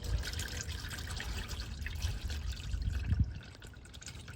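Hot, black used engine oil pouring in a stream from the oil pan drain hole into a drain bucket, splashing and trickling steadily; it grows quieter about three seconds in.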